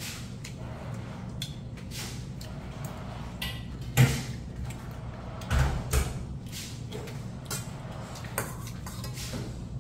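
Eating sounds: a metal spoon clicking and scraping in a stainless steel bowl of mixed barley rice, with chewing, over a steady low hum. One loud knock comes about four seconds in, and two more follow a second and a half later.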